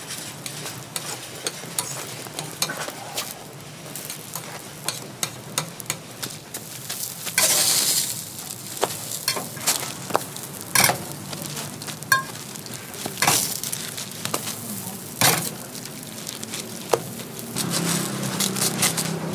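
Hotteok sizzling on a flat steel griddle, cooked without oil, while metal tongs tap and scrape against the griddle as the pancakes are turned. There is a longer scrape about seven seconds in, and several sharp clinks later on.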